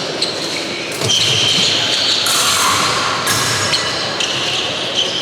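Fencing hall ambience during an épée bout: a steady hum of the hall with a few knocks of footwork and blade contact, over long electronic tones from scoring machines that start and stop at different pitches.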